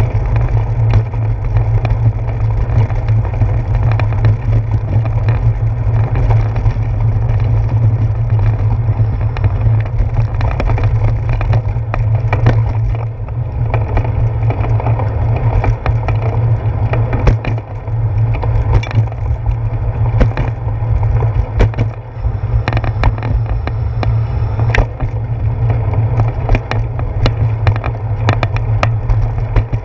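A bicycle rolling over brick pavers and concrete sidewalk, its road vibration carried into a handlebar-mounted GoPro Hero 4: a steady low rumble with frequent sharp knocks and rattles from bumps and seams.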